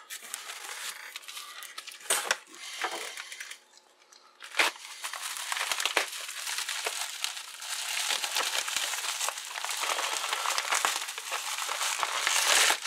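Plastic packing wrap crinkling and rustling as it is handled and pulled out of a cardboard box, with scattered sharp clicks. It pauses briefly about four seconds in, then runs on continuously, loudest near the end.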